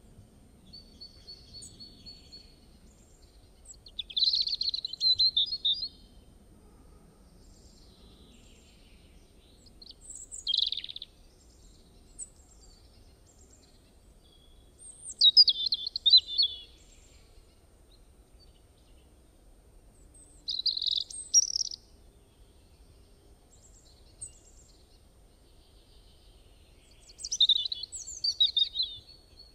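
A small songbird singing in five short bursts of chirping phrases, roughly five seconds apart, over a faint low background hiss.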